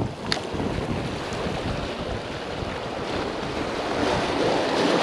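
Surf washing against jetty rocks, mixed with wind on the microphone; the wash swells louder near the end. A single short click about a third of a second in.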